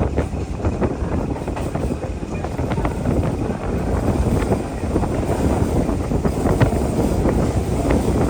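Steady rumble and rattle of a moving train, with scattered sharp clicks from the wheels and wind on the microphone.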